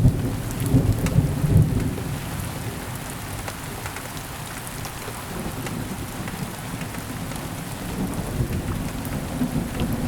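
Steady rain with rolling thunder: a heavy low rumble in the first two seconds that swells again near the end, over a constant wash of rain with scattered drop ticks.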